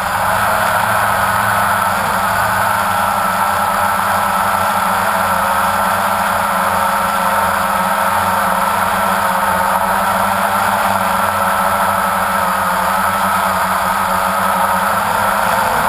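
Multirotor drone's motors and propellers running steadily in flight, heard close up through the camera it carries: a steady high whine over a low hum, its pitch wavering slightly.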